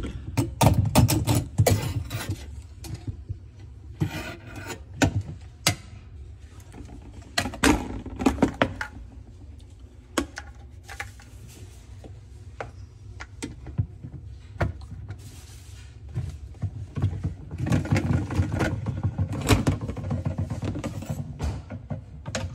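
Plastic clicks, knocks and scraping from a broken dishwasher lower spray arm and its plastic mounting nut being unscrewed, handled and lifted out of the tub, with a low steady hum underneath.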